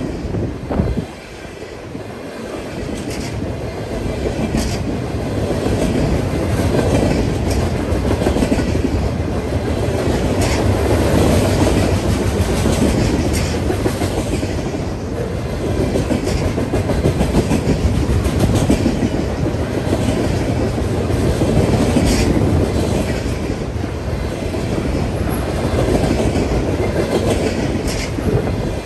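Freight cars rolling past close by: a steady rumble of wheels on rail with a clickety-clack and sharp metallic clicks now and then.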